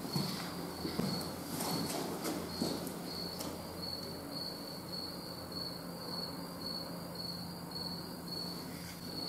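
A cricket chirping steadily, a single high note repeated about two to three times a second, with a few faint clicks in the first few seconds.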